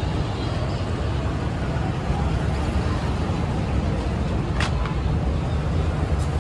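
Steady low rumble of a running vehicle engine, with one short sharp high sound about two-thirds of the way through.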